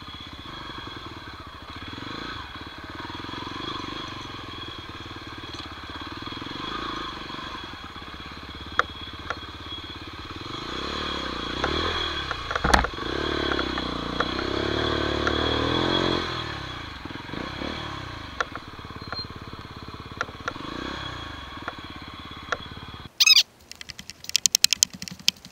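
A 125 cc enduro motorbike engine running while riding a rough trail, revving up and down under load, with scattered knocks and clatters from stones and brush and one loud knock about halfway through. Near the end the engine note cuts out and gives way to a quick run of sharp clatters.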